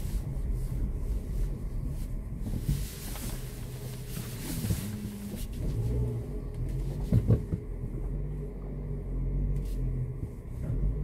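Renault Kaptur crawling through a deep muddy puddle, heard from inside the cabin: a low, steady engine and road rumble with water washing under the car. A couple of sharp knocks come about seven seconds in as it rocks over the rough bottom.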